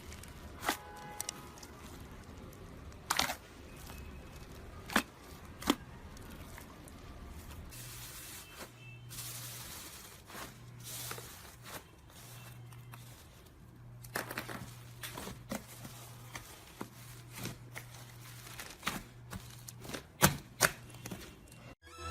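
Close-miked slime ASMR: scattered crisp crackles and sharp pops, a few loud ones in the first six seconds and a denser run of small clicks in the last third, over a faint low hum that comes and goes.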